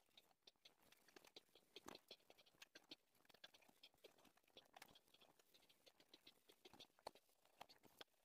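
Faint pencil scratching on paper: many short, quick shading strokes, several a second and irregular.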